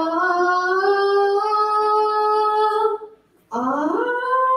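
Young voices singing a long held note in unison, with a short break about three seconds in, then swooping up into the next held note.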